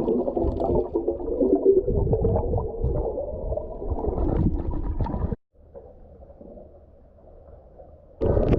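Muffled underwater sound picked up by a camera submerged while snorkeling: water churning and bubbling. It cuts off abruptly about five seconds in to a much quieter underwater hush, then turns loud again just before the end.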